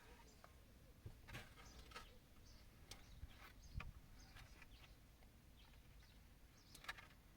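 Near silence, with a few faint, scattered bird chirps in the background.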